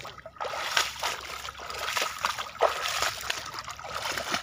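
Boots wading through shallow marsh water: irregular splashes and sloshes, several a second, as the legs churn through the water.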